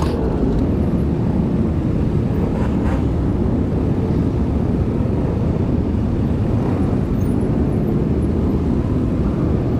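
Steady rush of wind and road noise on a camera microphone riding on a moving motorcycle, dense and unbroken, with no distinct engine note standing out.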